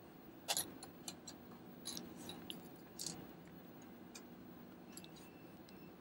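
Light, scattered clicks and ticks of a magnetic screwdriver working small screws into a Mac mini's metal frame. The loudest click comes about half a second in.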